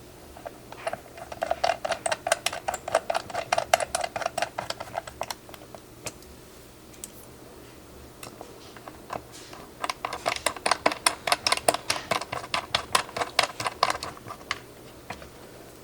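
Glorious GMMK Pro mechanical keyboard with Glorious Lynx switches being typed on: two runs of quick key clicks, several a second, each lasting about four seconds, with a pause between them.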